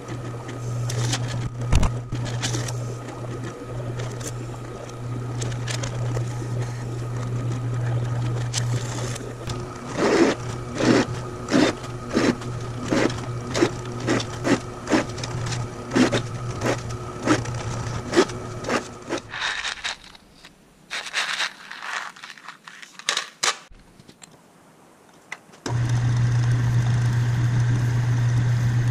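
Drill press motor running steadily while holes are drilled and then countersunk in a 1/8-inch aluminum sheet, with a run of short sharp cutting sounds about once or twice a second in the middle stretch. The hum stops, a few clicks and knocks of handling follow, then a metal lathe starts running steadily near the end.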